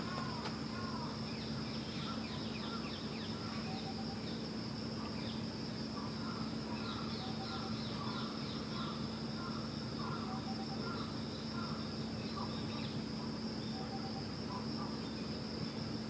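Steady background hum and a high, even hiss, with many short chirps and little falling twitters repeated over them.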